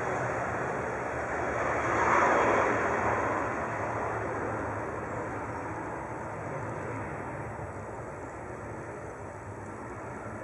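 Airbus A320's twin IAE V2527-A5 turbofan jet engines roaring at high power as the airliner runs down the runway past the listener. The roar is loudest about two seconds in, then slowly fades as the jet moves away.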